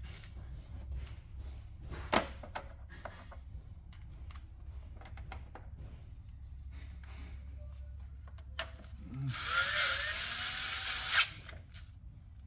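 Cordless driver spinning a socket to tighten the air intake duct clamp: one run of about a second and a half near the end, with a rising whine, stopping suddenly. Light clicks and handling of the tool and duct come before it.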